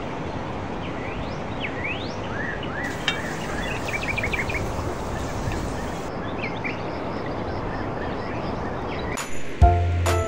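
Small birds chirping in short rising calls and a quick trill over a steady outdoor background hiss. About a second before the end, music with a heavy bass note comes in.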